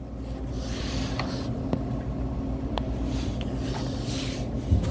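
A steady low mechanical hum, with a few light clicks.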